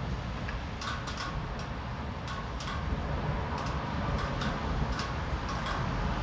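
Rain falling at night, with frequent irregular drops tapping close by over a steady low rumble.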